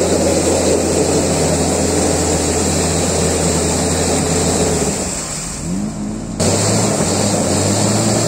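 Jeep Cherokee XJ engine revving under heavy load as it churns through a deep muddy rut, its spinning tyres throwing up mud and water. About five seconds in the revs fall away and the sound drops, then the full engine and splashing noise comes back abruptly.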